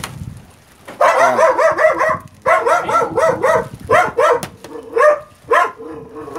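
A dog barking and yelping: a high, warbling yelp about a second in, then a run of short high yips.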